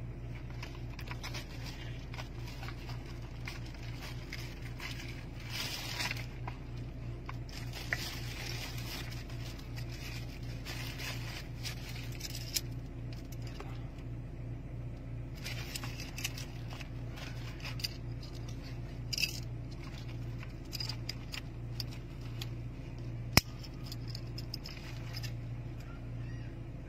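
Cold Steel Kudu folding knife being handled, with light scrapes and clicks and a steady low hum under them. One sharp click about 23 seconds in, as the blade is opened and locks.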